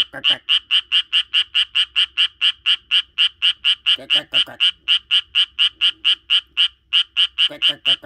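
Japanese tree frog calling: a fast, even series of sharp croaks, about five a second, with a short break about two-thirds of the way through. A lower-pitched croaking joins in briefly twice, around the middle and near the end.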